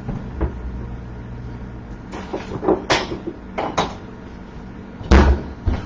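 Kitchen cupboard door and crockery being handled as a plate is fetched: scattered light clicks and clacks, then a heavier knock about five seconds in.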